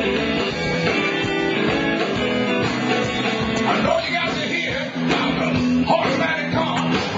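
Live blues-rock band playing: electric guitars over a drum kit, with a man singing into the microphone from about four seconds in.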